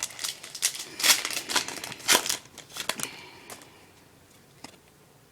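Foil wrapper of a hockey card pack crinkling and tearing as it is ripped open: a run of sharp crackles over the first three seconds or so, then it goes quiet but for a single small click.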